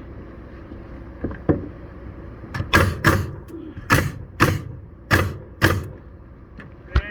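Nails being driven into wooden wall framing: a run of about seven sharp strikes, some in quick pairs, with a lighter knock before them and a thud near the end.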